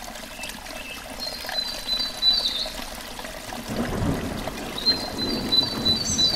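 Recorded nature ambience: a stream trickling steadily, with a bird singing high chirping trills twice. About halfway through, a low rumble of thunder swells in under the water.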